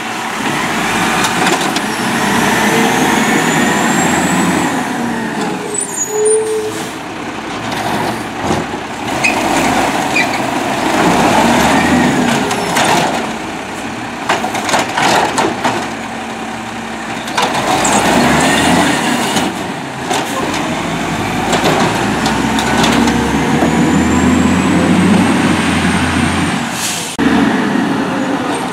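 Peterbilt 320 automated side-loader garbage truck at work: the engine revs up and down several times as the hydraulic arm runs, with a rising whine, a few clanks of the cart and air brake hisses as the truck stops and moves on.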